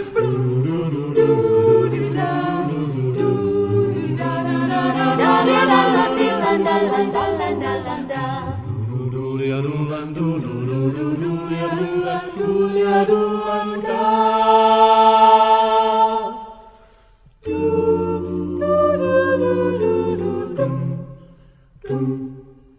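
Mixed a cappella vocal ensemble singing close harmony without accompaniment. A long chord is held about two-thirds through, then after a brief break a few short closing chords fade away near the end.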